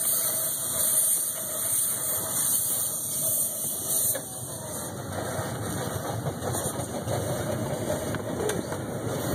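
Ride-on miniature train running along its track: a steady engine-and-running rumble, with a high hiss that eases off about four seconds in.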